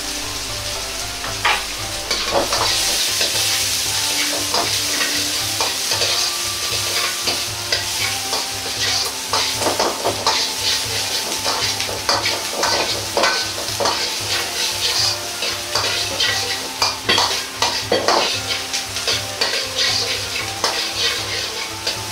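Diced vegetables sizzling in hot oil in a wok, with a ladle scraping and clacking against the wok again and again as they are stir-fried.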